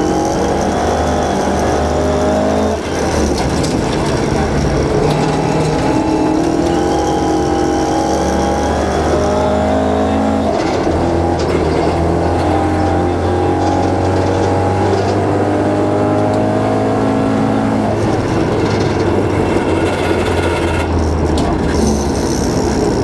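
Rally car engine heard on board, pulling hard up through the gears on a gravel stage: the revs climb in long rising sweeps and drop at each gear change, over a steady rush of tyre and gravel noise.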